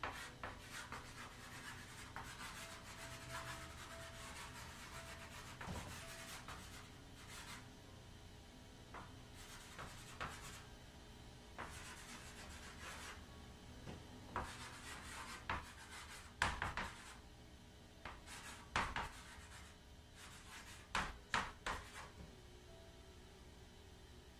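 Chalk writing on a chalkboard: runs of scratchy strokes with short pauses between them. A few sharper knocks, the loudest sounds, come in the second half.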